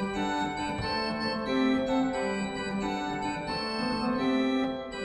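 Organ music: a slow melody of held, steady notes.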